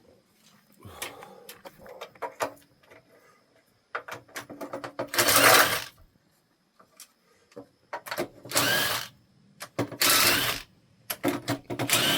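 Handheld power tool run in four short bursts, each under a second, with scraping and handling noise between them.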